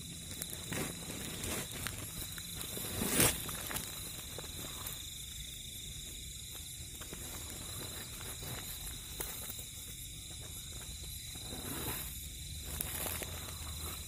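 Hands rustling and pulling at a nylon fishing cast net over grass, with a sharp crackle about three seconds in, over a steady chorus of night insects.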